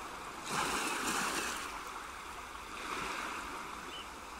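A steady rushing noise that cuts in suddenly and swells for about a second near the start before settling.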